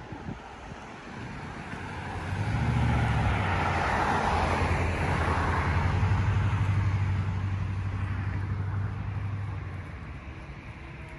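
A car driving past on the road, its tyre hiss and low engine hum swelling to a peak about four to five seconds in, then fading away.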